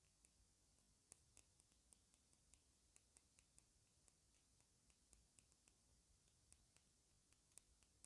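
Faint typing on a computer keyboard: irregular keystroke clicks, about three or four a second.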